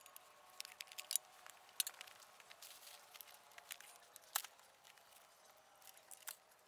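Faint scattered clicks, taps and rustles of camping gear being handled: small items set down on a camp table and a fabric pouch opened. The sharpest tap comes a little over four seconds in.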